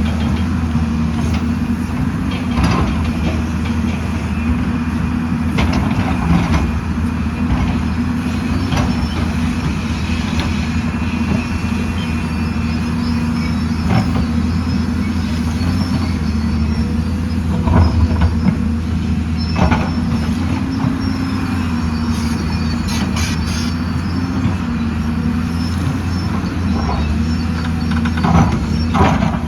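Excavator's diesel engine running steadily under load, with scattered clanks and knocks from the working machine and a few thin high squeaks about two-thirds of the way through.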